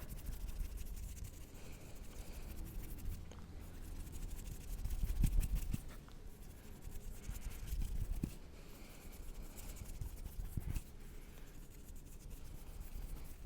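Hands fluttering and rubbing close to a sensitive microphone: soft skin rustling and scratching with many small clicks, and low rumbly puffs of moving air that swell louder around five and eight seconds in.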